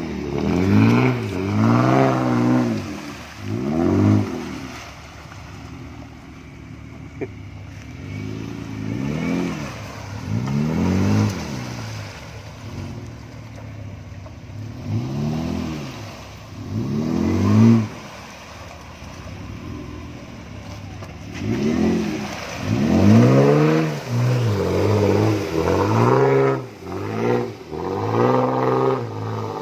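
Jeep Wrangler Rubicon engine revving hard again and again under load as it drives through mud and water. Each rev rises and falls in pitch, with quieter running between them, and the revs come closer together near the end.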